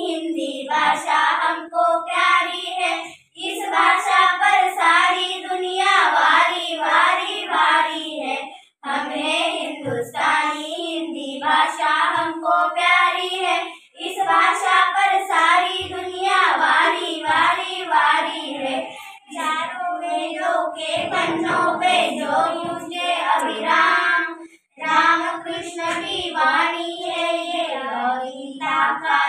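Four young girls singing a song together, line by line with a short breath-break between phrases about every five seconds.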